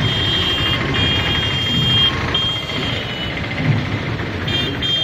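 A steady high-pitched tone sounds in stretches of about a second, broken by short gaps and one longer pause, over a continuous low rumble.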